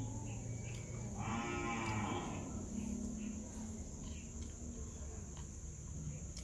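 A cow mooing once, a long moo that starts about a second in and fades out after a second or so.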